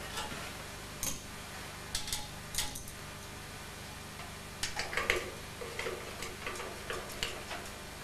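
Screwdriver driving small screws into the steel drive cage of a PC case to fix a CD-ROM drive: light metal-on-metal clicks and scrapes that come in a few short clusters.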